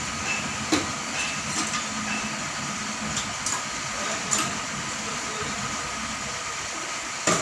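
Portable automatic gas-cutting carriage running on its small drive motor: a steady mechanical hum and hiss, with a few light clicks and a sharper knock near the end.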